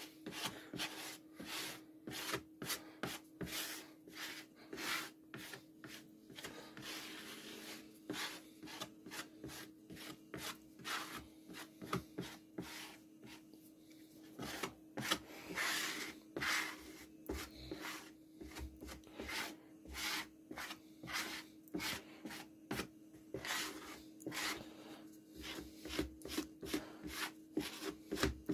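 Plastic glue spreader scraping back and forth over a fibreboard panel, spreading wood glue in quick, irregular repeated strokes.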